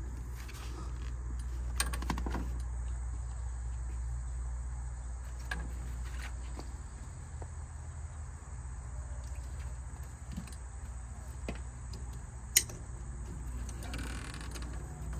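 Light clicks and rattles of nylon strap buckles and the soft top's metal folding-frame bars being handled and buckled, with one sharp click near the end. A steady high insect drone and a low hum run underneath.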